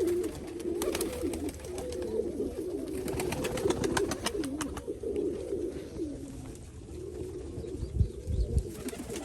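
Nikolaev pigeons cooing continuously in a loft, with scattered faint clicks and a couple of low thumps about eight seconds in.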